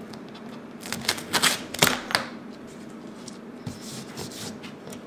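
Duct tape and a craft knife handled on a plastic cutting mat: a quick run of sharp clicks and crackles between about one and two seconds in, then fainter scattered ticks.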